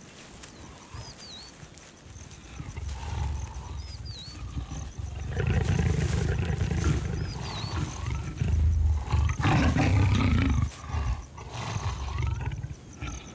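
A pair of leopards growling while mating: low, rough growls that build from about three seconds in and come in several loud bursts through the middle. A bird gives a short chirp every few seconds.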